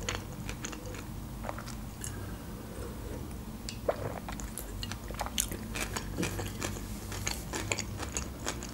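Close-miked drinking from a can: sips and swallows heard as scattered small wet mouth clicks and gulps, over a low steady hum.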